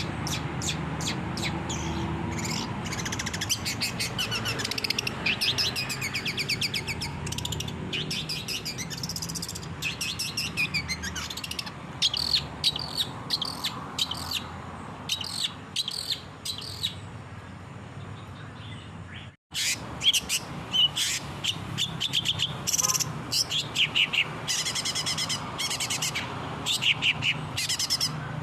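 Long-tailed shrike (cendet) singing in a busy, rapid chatter of rattles and short high trilled phrases over a low steady hum, broken once by a sudden brief gap about two-thirds of the way through.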